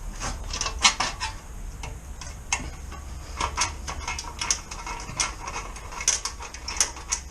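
Irregular metallic clicks and clinks from a socket ratchet and bolt being worked into the motorcycle silencer's top mount, coming unevenly, some singly and some in quick pairs.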